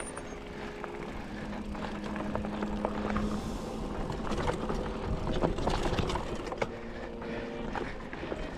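Mountain bike riding a dirt trail: tyres rumbling over dirt and stones, with many small clicks and rattles from the bike and a steady hum, and wind buffeting the microphone.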